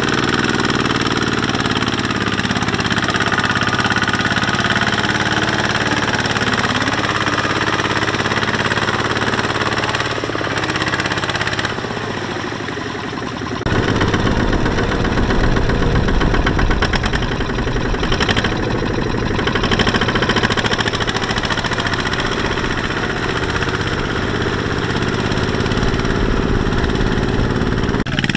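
Two-wheel walking tractor's single-cylinder diesel engine running under load as it pulls a laden trailer through mud. Steady for the first half, then rougher and more uneven after a cut about halfway through.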